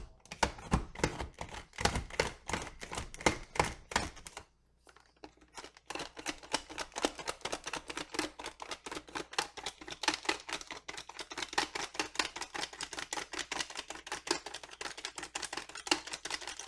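Hand-pressed plunger food chopper cutting vegetables: the top is pressed down again and again, its blades clacking in a fast run of clicks. The clicking stops briefly about four seconds in, then goes on faster.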